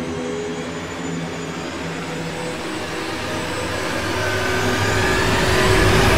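Sound effect for an animated logo intro: a rushing, rumbling noise that swells steadily louder, building to a sudden heavy hit right at the end.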